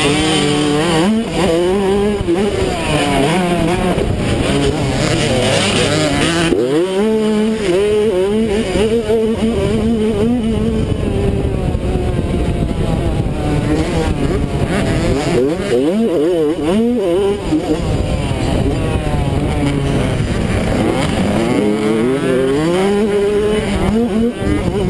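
Mini dirt bike engine heard close from the rider's helmet, revving up and down with the throttle and gear changes while racing round a motocross track, with a sharp drop in revs about six seconds in. Wind hisses over the microphone for the first six seconds or so.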